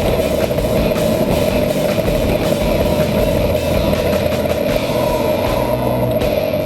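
Vehicle engine running steadily, with an even drone that holds without change.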